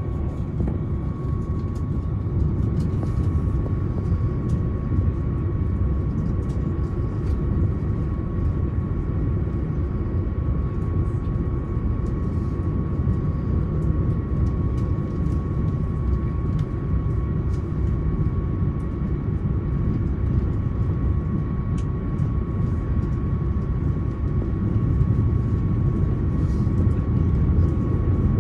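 JR Hokkaido limited express diesel train running at speed, a steady low rumble with a constant high whine over it.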